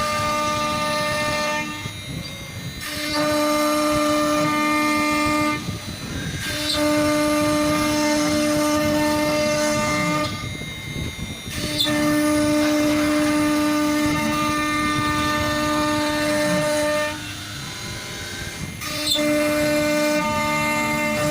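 CNC router spindle running with a steady high whine that comes and goes in stretches of a few seconds. Shorter, noisier passages without the whine fall between them.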